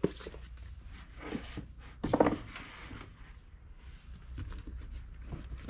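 Paperback manga volumes being handled and shelved: faint rustling, with a short louder slide-and-knock about two seconds in as a volume is pushed onto the shelf among the others.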